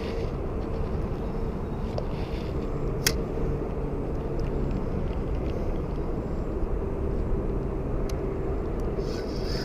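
Steady open-air background noise on a small boat on a lake: a low rumble with a faint steady hum, and one sharp click about three seconds in.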